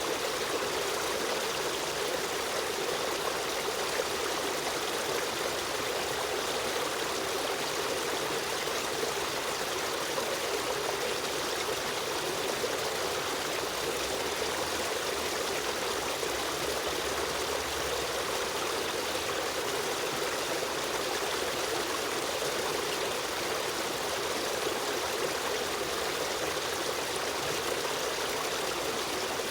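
Stream water running steadily over rocks, a constant rushing and trickling.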